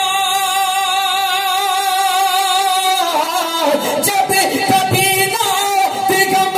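A man singing a naat into a microphone: he holds one long wavering note for about three seconds, then runs through quick ornamented turns of pitch.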